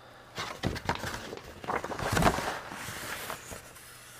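Paper rustling as the contents of an instruction envelope, sticker sheets among them, are drawn out and handled: irregular scrapes and rustles, loudest about halfway through.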